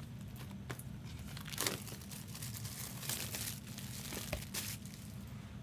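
Trading-card packs and box cardboard being handled, with several short crinkles and rustles of the foil wrappers and card packaging. A steady low hum runs underneath.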